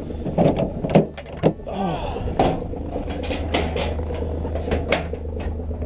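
Farm vehicle engine running at idle, with a series of sharp knocks and clanks over it.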